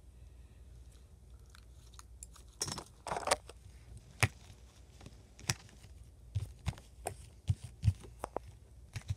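Slime made from Flarp noise putty softened with hand sanitizer, handled by hand: a wet crackling squish about three seconds in, then a series of sharp pokes with soft thuds as fingers press it on a table.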